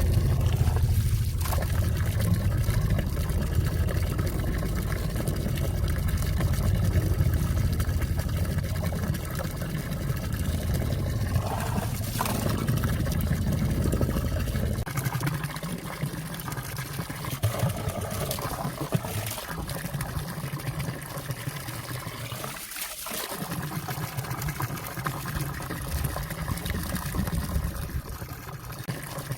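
Clear valley stream water trickling and pouring around and under ice, a steady flowing sound. A low rumble under it drops away about halfway through.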